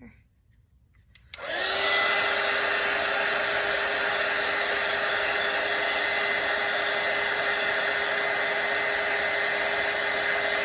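A hand-held electric dryer switches on about a second and a half in and runs steadily, a loud rush of air with a constant whine, blowing on wet watercolor paint to dry it.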